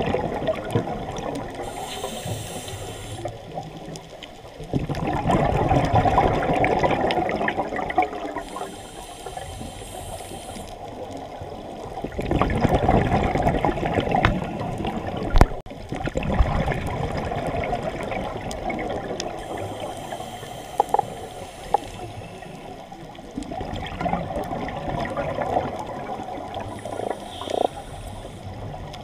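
A scuba diver breathing through a regulator underwater: a short hissing inhale, then a few seconds later a long rush of exhaled bubbles, the cycle repeating about three times. A single sharp click about halfway through.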